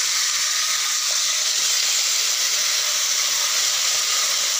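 Hot cooking oil in a kadai sizzling with a steady hiss.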